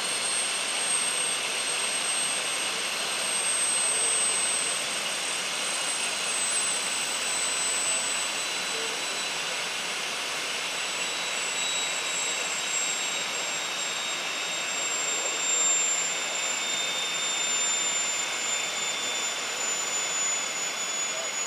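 Syton AH-130 light helicopter running on the ground with its rotor turning: a steady rushing noise under a high whine that drifts slowly lower in pitch.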